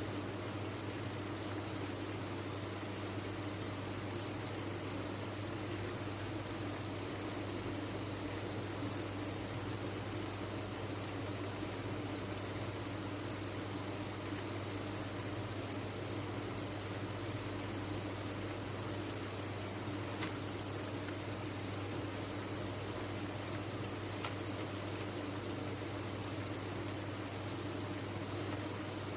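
Many farmed crickets chirping together, their calls merging into one steady, high-pitched, unbroken trill.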